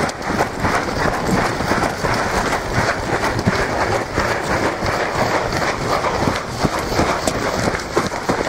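Several people running in boots on a dirt and gravel track: a quick, steady patter of footfalls.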